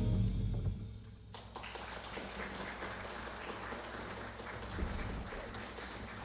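The jazz quartet's final note dies away in the first second, then the audience applauds steadily.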